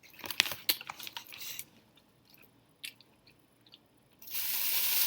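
Biting and chewing crispy fried boneless chicken: a run of crunchy crackles in the first second and a half, then a few soft chewing ticks. Near the end a loud breathy rush of noise sets in and holds for about a second.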